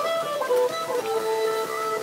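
Background music: a melody played on a plucked string instrument such as a guitar, notes changing several times a second.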